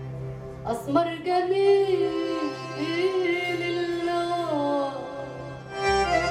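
Live Arabic oriental band music accompanying belly dance: held keyboard tones with a gliding, wavering melody line entering about a second in.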